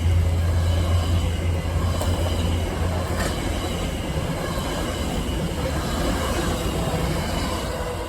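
Train passing on the track, a low engine drone fading in the first few seconds, then the rushing of wheels on rails, which slowly dies away as the train recedes.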